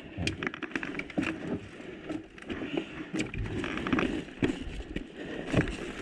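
A player moving on foot, with irregular footfalls, rustling kit and scattered clicks and knocks.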